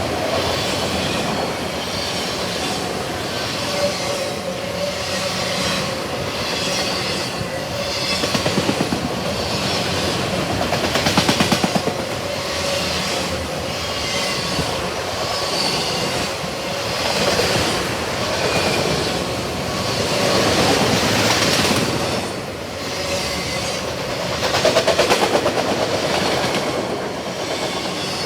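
Long CSX autorack freight train's cars rolling past, wheels clacking over rail joints about once a second, with a steady wheel squeal.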